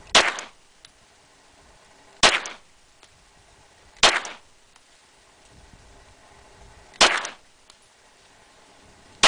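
Glock semi-automatic pistol fired in slow single shots: four gunshots two to three seconds apart, each trailing off in a brief echo, with a fifth shot right at the end.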